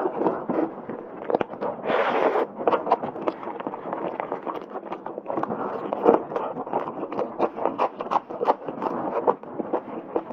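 Close-miked chewing and gnawing of braised pork meat pulled from a large bone, a dense run of small clicks and crackles, with a brief louder rustle about two seconds in.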